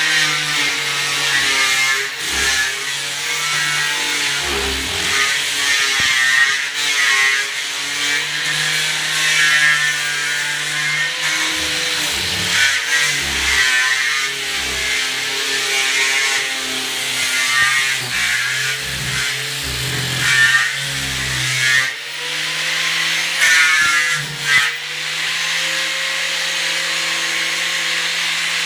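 Electric angle grinder with a sanding disc sanding plywood cabinet doors, levelling them so the laminate will lie flat. The motor hums steadily and its pitch sags each time the disc is pressed into the wood, with a rasping scrub that swells and eases; from about 22 s in it runs more evenly under a lighter touch.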